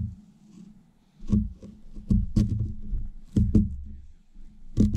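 Kitchen knife cutting a red onion and knocking down onto a plastic cutting board: several sharp knocks at uneven intervals.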